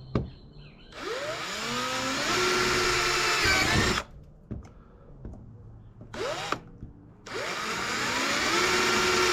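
Power drill boring mounting holes into a kayak hull: two runs of about three seconds each, the motor whine rising as it spins up and then holding steady, with a short burst between them.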